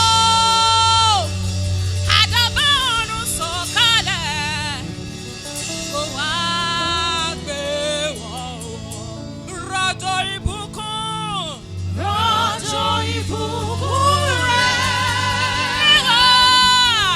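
Gospel worship song: a sung vocal line holding long notes with vibrato over a steady bass accompaniment.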